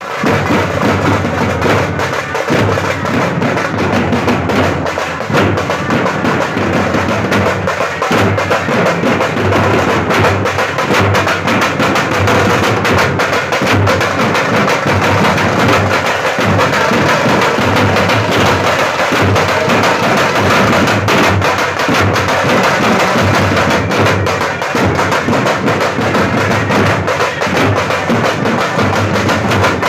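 Marching band drums playing: bass drum and snare drums beating a steady rhythm without a break.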